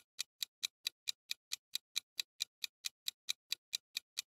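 Countdown-timer sound effect: a clock ticking fast and evenly, about four to five ticks a second.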